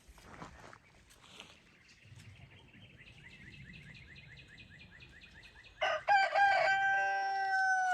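Rooster crowing: about six seconds in, a loud crow that breaks up at first and then settles into a long held note. Before it comes a faint run of quick repeated bird calls.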